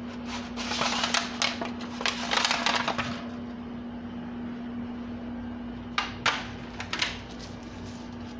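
Disposable aluminium foil pan crinkling and scraping against a wire oven rack, with clicks and clanks of metal, for about three seconds; a few sharp clicks follow several seconds later as the pan is handled and set down. A steady low hum runs underneath.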